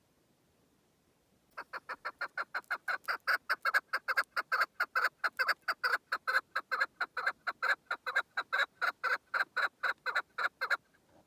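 Chukar partridge calling: a long, rapid run of short, clucking notes at about five a second. The run starts about a second and a half in, swells slightly, then stops abruptly shortly before the end.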